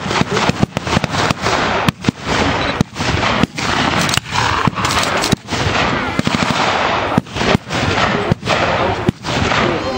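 Small-arms blank fire in a mock battle: a dense, irregular stream of overlapping shots, several a second, with no let-up.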